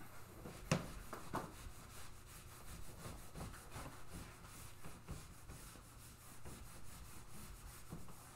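Whiteboard eraser wiping across a whiteboard in repeated faint rubbing strokes, with one sharp tap about three-quarters of a second in.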